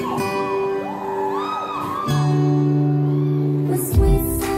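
Upbeat electronic J-pop track playing over a stage sound system: held synth chords with swooping pitch glides, and heavy bass beats coming in near the end.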